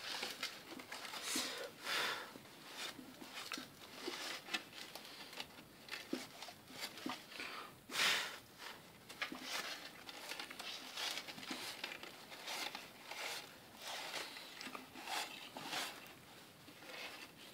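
A cloth wiping and rubbing over the outside of a clay pot in short, irregular scrubbing strokes, with one louder stroke about eight seconds in.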